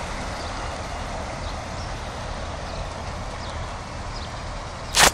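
Steady rush of floodwater on a flooded street over a low rumble, broken near the end by one loud, sharp knock.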